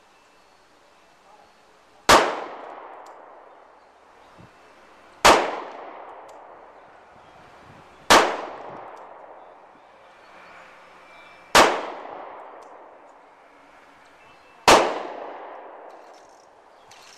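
Five handgun shots fired slowly one at a time, about three seconds apart, each followed by a fading echo.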